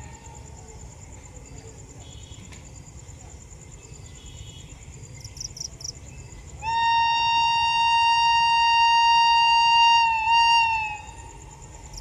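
WAP-7 electric locomotive horn sounding one long blast of about four seconds, with a brief break near its end. A steady high insect trill runs underneath.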